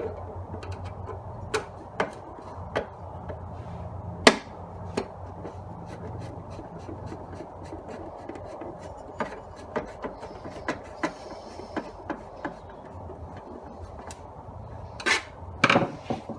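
Scattered clicks and knocks of a screwdriver and planer parts being handled as the DeWalt DW734 planer's dust collector attachment is screwed back on, over a steady low hum. The sharpest knock comes about four seconds in, with a few more near the end.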